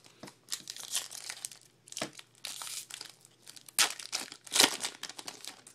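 Shiny foil wrapper of a baseball card pack being opened and crumpled by hand: irregular crinkling, with the loudest crackles about four seconds in.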